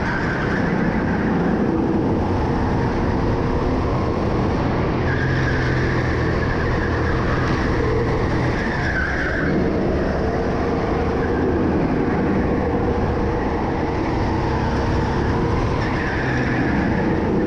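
Go-kart engine running hard under racing load, with tyres squealing through the corners: near the start, from about five to nine seconds in, and again near the end.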